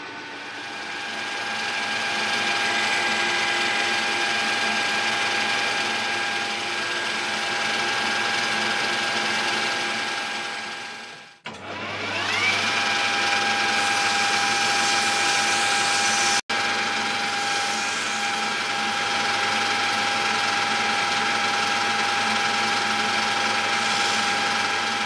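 Metal lathe running with a steady gear whine while it turns a stainless steel taper. About eleven seconds in the sound fades away and returns with a rising whine as the spindle spins back up. Near the end, abrasive cloth is held against the spinning taper.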